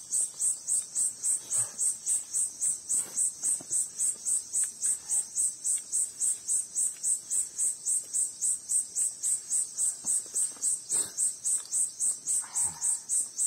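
An insect, cricket-like, chirping steadily in a high pitch at about three or four chirps a second, with a few faint clicks among it.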